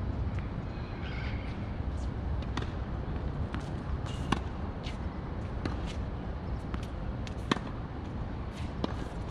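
Tennis balls being struck with rackets and bouncing on the court: sharp pops at irregular intervals, the two loudest about four and seven and a half seconds in, over a steady low rumble.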